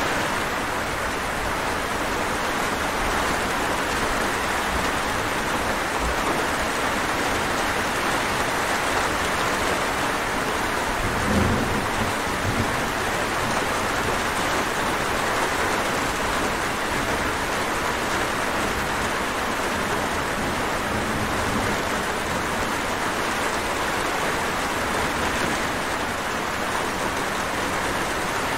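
Steady rain falling, an even hiss, with a brief low rumble of distant thunder about eleven seconds in.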